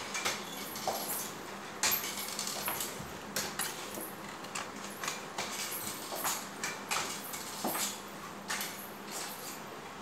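Forearm crutch tips knocking on a tiled floor with each step, with the small bells of ankle chains (payal) clinking along as the walker moves, in irregular sharp clicks one or two a second.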